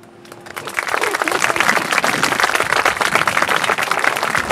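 Wedding guests applauding, the clapping building up over the first second and then going on steadily, with a few voices mixed in.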